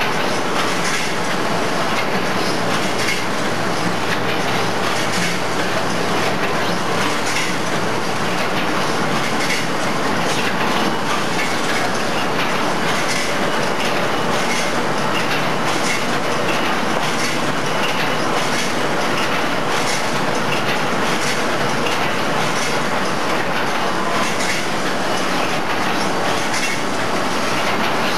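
SY-HD38 automatic square-bottom bag making machine running in production: a loud, steady mechanical clatter with a faint regular ticking beat.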